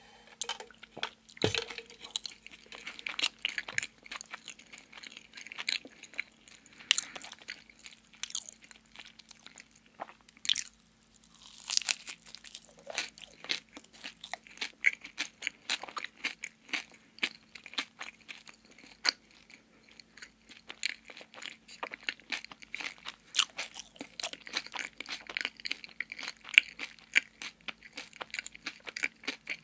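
Close-miked chewing: a dense, irregular stream of crunchy, wet mouth clicks. There is a single low bump about a second and a half in.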